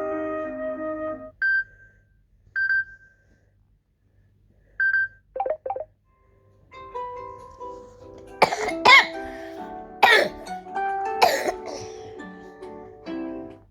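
Samsung Galaxy S22+ ringtones playing in turn. A melodic tone ends about a second in, followed by three short high pings, a pair of quick chirps, and then a new tune with several sharp percussive hits that stops just before the end.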